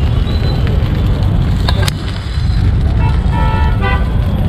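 Steady low rumble of street traffic, with a sharp metallic clack about two seconds in and a few short vehicle horn toots near the end.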